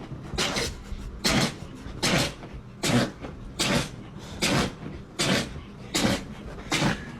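A dog sneezing over and over in a fit: about nine short, sharp sneezes a little under a second apart.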